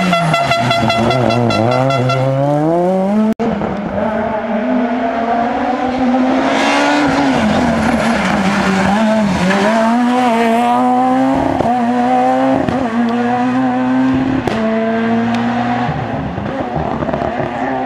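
Peugeot 207 S2000 rally cars' high-revving naturally aspirated 2.0-litre four-cylinder engines at full throttle on a tarmac stage. The revs fall, then climb hard with several quick drops in pitch at the gear changes. There is an abrupt cut between two cars about three seconds in, and the engine sound eases as the second car pulls away near the end.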